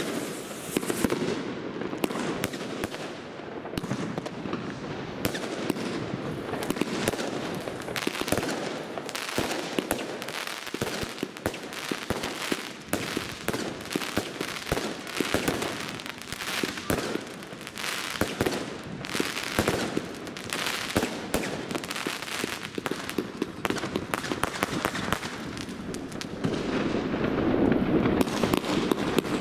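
Consumer firework batteries, chained together with fuse, firing in rapid succession: a dense, unbroken run of launches, bangs and crackling bursts, louder near the end.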